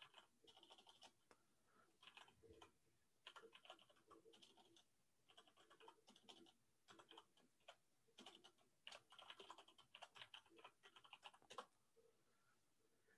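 Computer keyboard typing: faint, irregular bursts of rapid key clicks that stop near the end.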